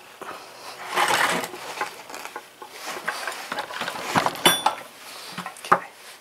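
Metal parts of a cast-iron Briggs & Stratton engine being handled and fitted during reassembly: irregular clinks and rattles, with one clear ringing metallic ping past the middle.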